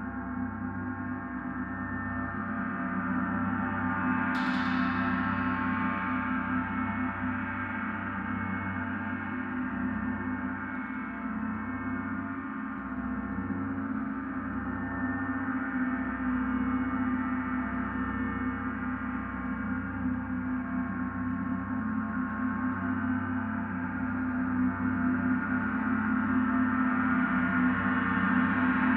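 Large suspended gong played continuously with two soft-headed mallets, its many overlapping tones sustaining into one unbroken wash. A brighter, sharper stroke stands out about four seconds in, and the sound swells slightly near the end.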